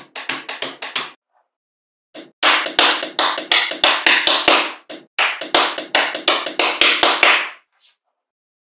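Small magnetic metal balls clicking as they snap together: a quick run of sharp clicks, then after a short pause about five seconds of dense clicking and rattling as the ball pieces are pressed and slid into place.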